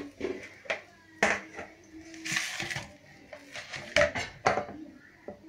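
Kitchen handling noise: scattered knocks and taps of utensils, a plastic bowl and metal plate, with a brief scraping hiss about halfway through, as dough is pinched off for the next chapati.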